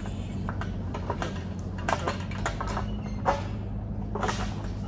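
An engine running steadily, with irregular knocks and clatter over it.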